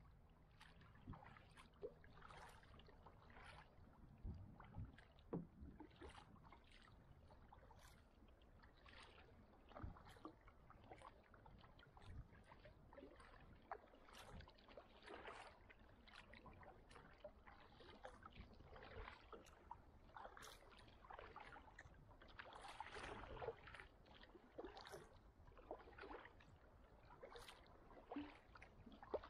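Faint kayak paddling: the blades dip and splash into the water at irregular intervals, about once a second, with water dripping and sloshing around the hull.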